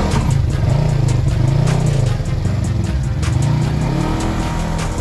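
Side-by-side UTV engine revving up and down repeatedly as the machine drives through a muddy water pit.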